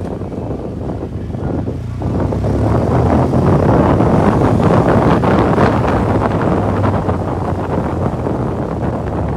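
Motorcycle engine running while riding, with wind rushing over the microphone; the noise grows louder about two seconds in and eases slightly near the end.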